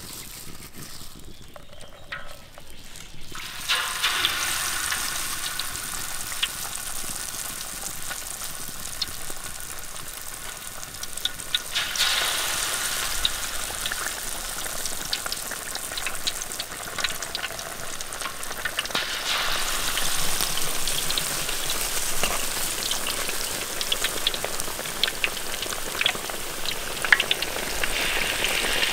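Fish frying in hot oil: a steady sizzle with many small crackling pops. It starts suddenly a few seconds in and grows louder twice later on.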